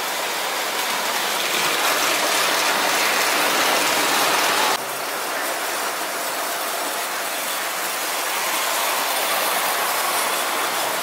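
Tinplate toy electric trains running on three-rail metal track: a steady, dense rattle of wheels and motors, which changes abruptly a little under five seconds in.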